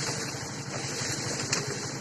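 A motor engine running steadily, with an even, fast low throb and a constant high hiss over it; one sharp click about one and a half seconds in.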